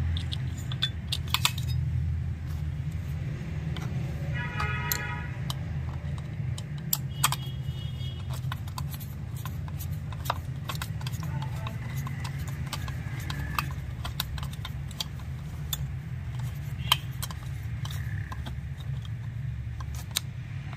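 Small metallic clicks and ticks of a screwdriver and screws as the ignition coil's two mounting screws are driven back into a chainsaw's crankcase, over a steady low hum. Two brief high tones come about four and seven seconds in.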